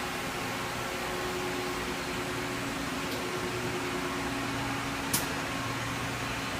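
Citizen A32 VII CNC Swiss-type lathe running under power: a steady machine hum with a few held tones, and a sharp click about five seconds in.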